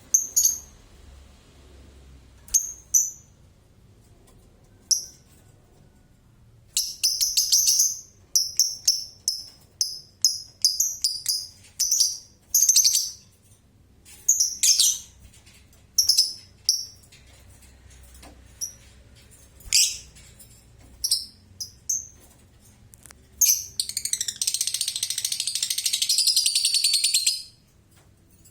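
Lovebird giving short, sharp, high-pitched chirps, singly and in quick clusters, then near the end a dense, rapid chattering trill of about four seconds: the lovebird's long 'ngekek' song.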